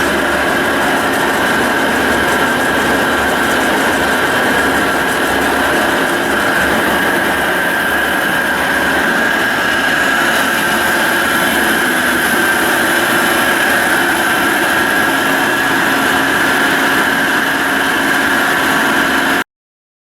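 Carlton radial arm drill press running under power, a steady motor and gear whine with a constant pitch; it stops abruptly near the end.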